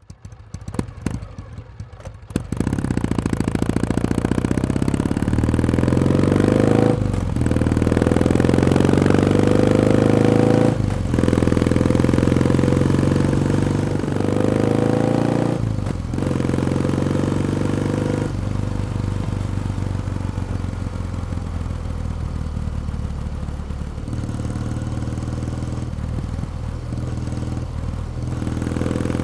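Kawasaki W1 Special's 650 cc air-cooled vertical-twin engine. It comes in with a couple of seconds of uneven, quieter running, then accelerates hard through the gears. The pitch rises in three climbs, each cut by a brief dip at a gear change, before it settles into steadier cruising.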